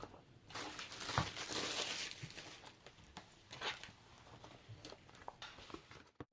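Faint rustling and crinkling of box packaging being handled, strongest in the first two seconds, with a few light clicks and knocks.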